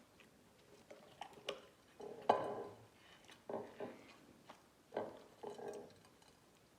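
Slime being squished and pulled by hand: irregular sticky squelches with small clicks and pops, the loudest squelch about two seconds in.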